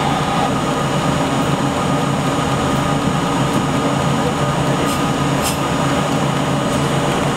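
A New York City subway train standing still at a station, heard from inside the front car: a steady, even hum of its idling on-board equipment, with a couple of constant tones.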